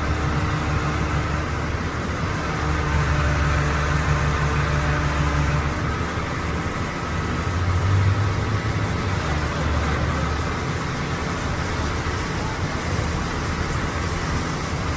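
A large engine running steadily with a low hum, swelling a little twice.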